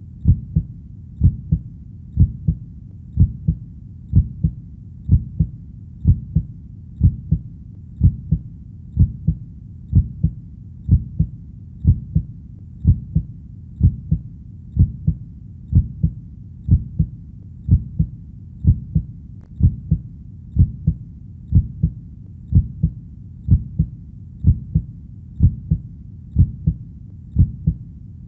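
Heartbeat: a low double thump (lub-dub) repeating steadily about once a second, over a faint steady low rumble.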